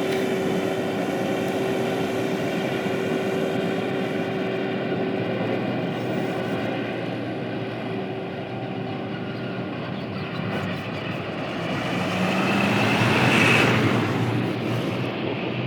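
Heavy diesel machinery engine running steadily. A louder rushing noise swells and fades about thirteen seconds in.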